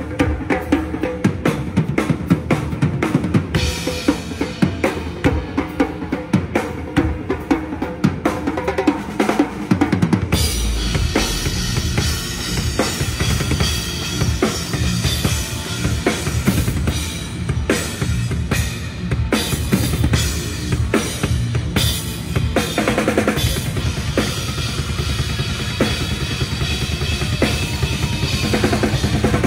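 Heavy metal drum kit played fast at a sound check, with rapid snare and bass-drum strokes. About ten seconds in, the bass drums become a dense, unbroken run.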